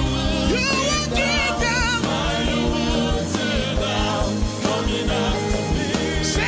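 Gospel worship music: vocal lines with vibrato over sustained keyboard-like chords and a steady bass pulse.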